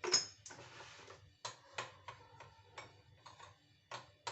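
A spoon stirring flour and sugar in a mug, with a scrape followed by an irregular run of light clinks of the spoon against the mug.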